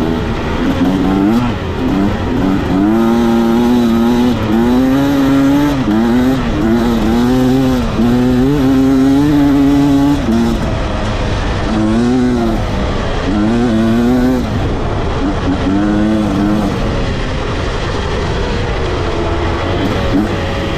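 Beta 300 RR two-stroke single-cylinder dirt bike engine under hard throttle, its pitch climbing and dropping again and again through the gears. About ten seconds in it turns to shorter bursts of throttle with pauses between.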